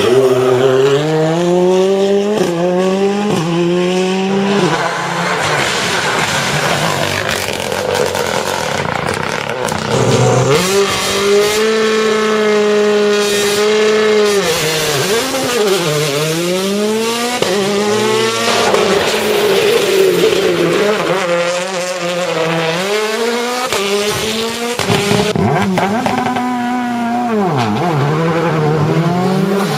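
Rally car engines at high revs, climbing in pitch through quick upshifts, holding steady, then dropping as they lift off and downshift before accelerating again, over several passes.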